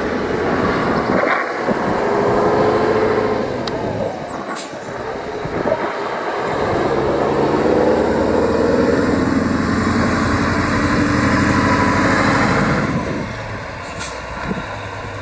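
Classic heavy diesel truck engine running hard as the truck drives along the track, its pitch shifting as it pulls. It is loud through most of the stretch and drops off near the end.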